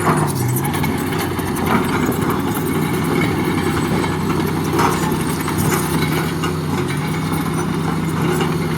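Heavy diesel engine of construction machinery running steadily at a low idle, with a few brief knocks over it.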